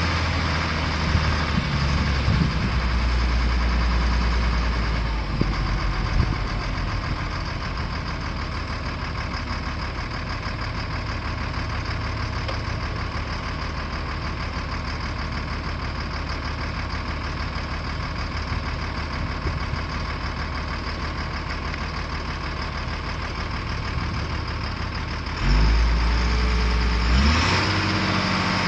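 Caterpillar 3116 inline-six diesel engine idling steadily with a fine rapid clatter. Near the end it gets louder for about two seconds, the pitch swinging up and down twice.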